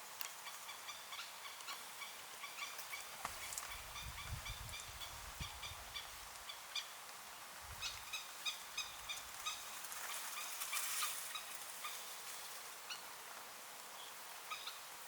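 Crested kingfisher calling: short harsh notes repeated in quick series, with a low rumble from about three and a half to six seconds in.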